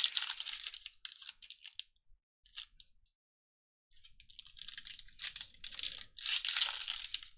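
Foil wrappers of Mosaic football card packs crinkling and tearing as they are ripped open by hand, in two spells with a near-quiet gap of about two seconds between them; the second spell is louder.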